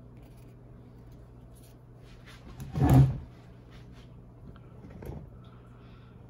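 Trading cards and packs being handled off camera: one loud knock and rustle about three seconds in, and a fainter one about two seconds later, over a low steady hum.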